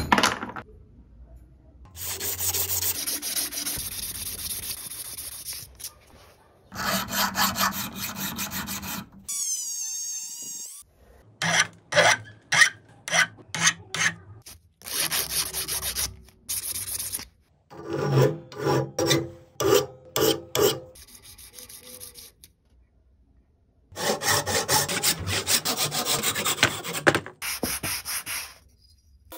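Hand sanding and filing on a restored screwdriver, including its wooden handle pieces rubbed back and forth on sandpaper: rhythmic rasping strokes at about two a second. The strokes come in a series of short clips that cut in and out abruptly.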